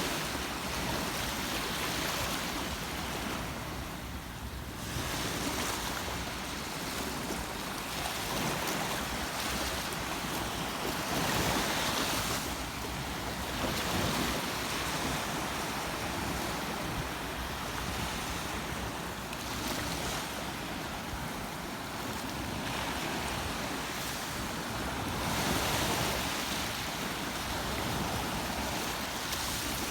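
A steady rush of water that swells and eases every few seconds, with wind on the microphone.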